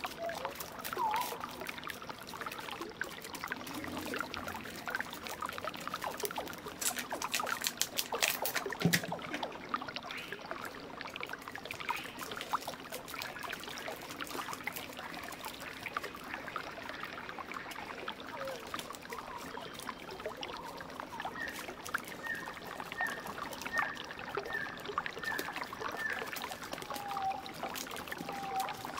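Hands kneading and smoothing soft clay over a crumpled aluminium-foil core: a moist squishing of clay with the crinkle and crackle of foil, in a dense run of sharp crackles about seven to nine seconds in.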